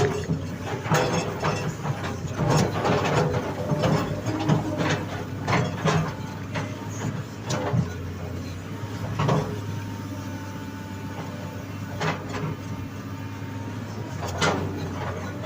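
Hydraulic excavator's diesel engine running steadily, with irregular knocks and clanks from the machine at work. The clanks ease off for a couple of seconds past the middle and return near the end.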